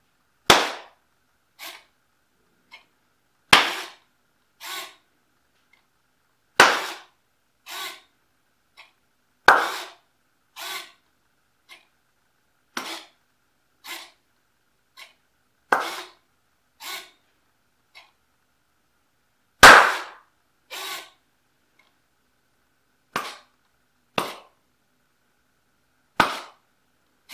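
Sharp, loud cracks made by hand, roughly every three seconds, setting off a Micro:bit v2's sound-level trigger. Most are followed about a second later by a softer sound as the servomotor swings its pointer back.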